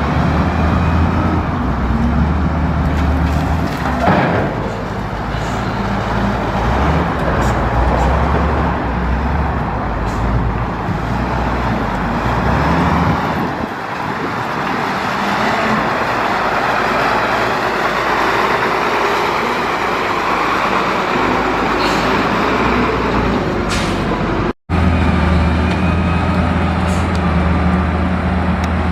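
Heavy diesel engines running on a street, a low steady hum that shifts in pitch now and then over traffic noise. The sound breaks off for an instant about three-quarters of the way through.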